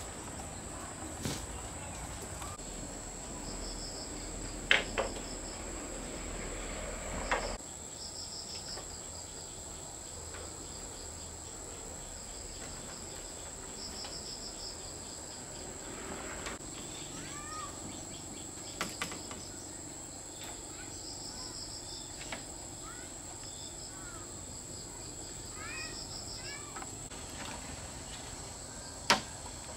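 Steady high insect drone with groups of pulsed cricket chirps repeating every few seconds, and a few short bird chirps. Several sharp knocks cut through, the loudest about five seconds in and just before the end.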